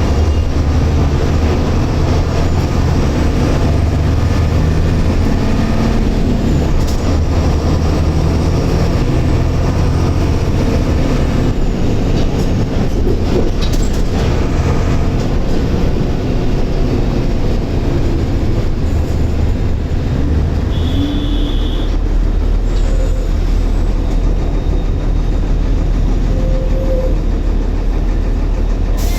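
Mercedes-Benz OF-1721 bus's six-cylinder turbo diesel engine running under way, with the rattle and rumble of the moving bus. The engine note shifts in pitch several times in the first half, then settles into a lower, steady rumble from about two-thirds of the way in.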